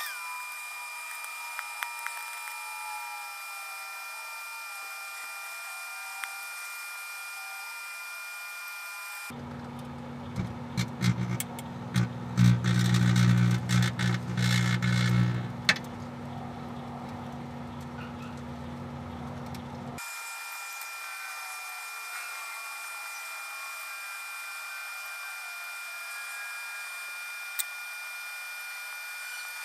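Microwave oven running. Through most of the stretch its hum is sped up into a thin, steady high whine over hiss. For about ten seconds in the middle it is heard at normal speed, a low electrical hum with irregular loud crackles and pops.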